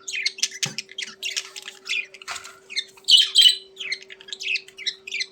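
Budgerigars chattering and squawking in rapid, overlapping chirps, loudest about three seconds in. A faint steady hum runs underneath.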